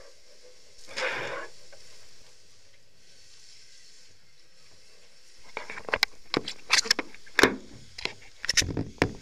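A short rush of hose water spraying about a second in. From about five and a half seconds a quick run of sharp knocks and taps on the car body close to the camera.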